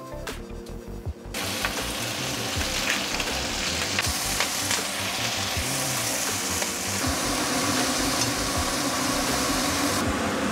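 Food sizzling in hot oil in a frying pan. It starts suddenly about a second in and then holds steady, with a few clicks of a utensil stirring in the pan.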